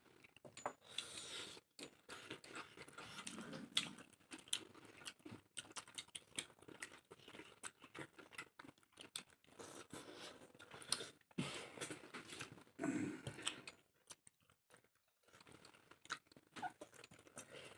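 A person chewing and eating a meal of chicken chilli and rice, with many small, irregular clicks and soft mouth smacks.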